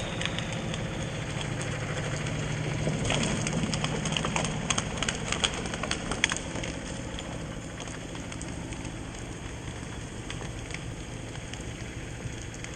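A logging yarder's engine running steadily in the distance under falling rain, with a burst of crackling and snapping about three to six seconds in.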